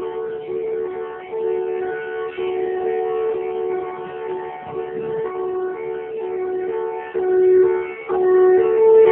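Instrumental background music of held notes that step between two close pitches, with a more melodic line starting near the end.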